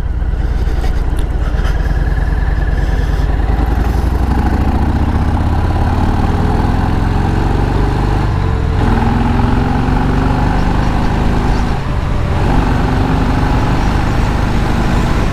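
Motorcycle engine running at speed with a steady low rumble. The engine note shifts several times as the throttle changes, with a brief drop about three-quarters of the way through.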